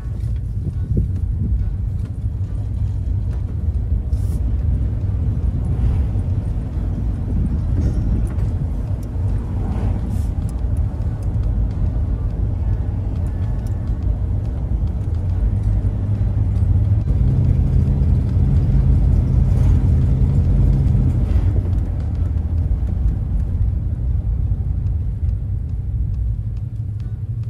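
Camper van driving on a paved road, heard from inside the cab: a steady low drone of engine and road noise. Past the middle the engine note rises and grows louder for a few seconds, then settles back.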